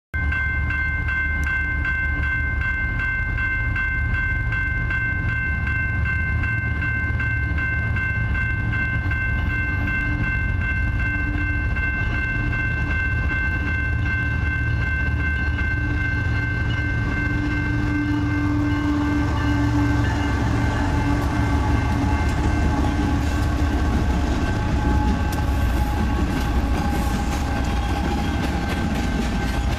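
Grade-crossing bell ringing rapidly and steadily, fading over the second half, while a BNSF diesel freight train approaches. The rumble of the locomotives and the noise of the train grow louder as it draws near and passes near the end.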